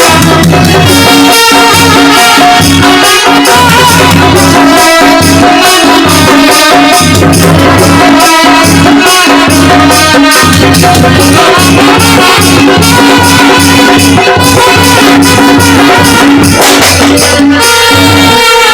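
Loud instrumental music accompanying an Odia Ramlila stage performance: held melody notes over fast, steady percussion strikes.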